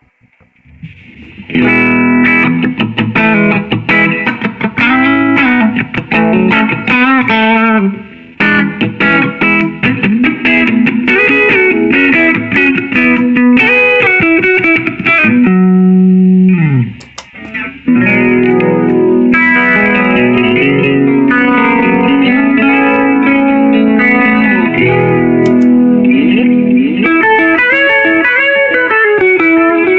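Electric guitar played through a Line 6 POD HD300 multi-effects pedal with its amp-modelled, effected tone, coming in about a second and a half in. It plays a run of notes, with short breaks near a quarter and just past half way, and a pitch dive downward just before the second break.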